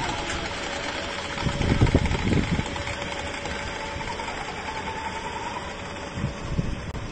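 Electric hoist motor of a suspended work platform (gondola) running steadily as it lowers the platform, a steady mechanical whine. Low thumps stand out about two seconds in and again near the end.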